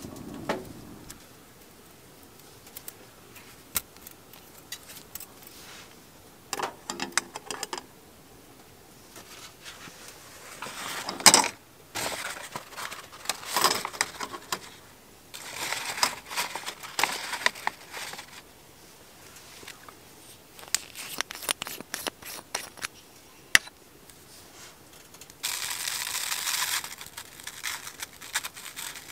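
Intermittent crinkling, rustling and tearing handling noises with scattered sharp clicks, in bursts of a second or two; the loudest burst builds up and stops about eleven seconds in.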